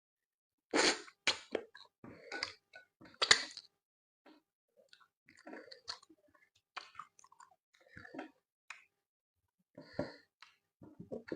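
Close-up mouth sounds of someone eating pounded yam with soup and fish: wet chewing in irregular bursts, loudest in the first few seconds, with another burst about ten seconds in.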